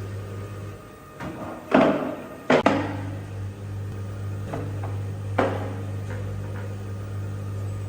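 A steady low hum that cuts out for about two seconds. During the break come a few sharp knocks and bangs, the loudest about two and a half seconds in, and a couple of lighter knocks follow after the hum returns.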